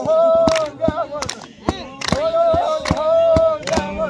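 Women's voices singing together in long held high notes that slide at their ends, with sharp claps in between.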